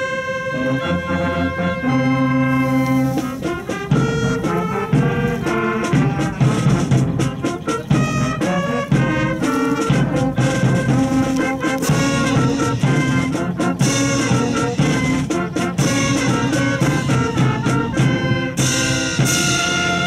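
Brass band music with trumpets and trombones.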